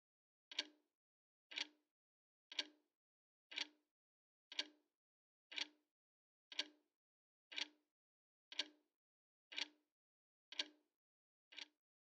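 Soft, regular ticking, one short tick about every second, fading out near the end.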